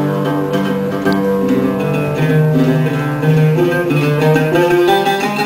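Background music: plucked string instruments playing a slow melody over a sustained low drone, without a beat.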